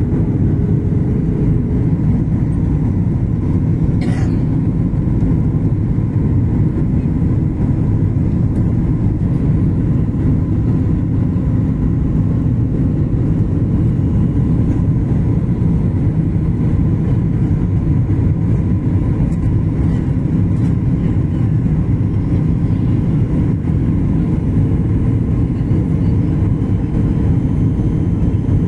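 Steady engine and airflow noise of a Ryanair Boeing 737 jet on its landing approach, heard inside the cabin at a window seat beside the engine. A faint steady tone runs through it, and there is a brief click about four seconds in.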